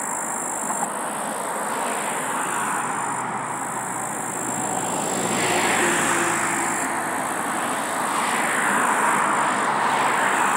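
Road traffic passing close by: a steady hiss of tyres and engines, swelling as vehicles go past about halfway through and again near the end.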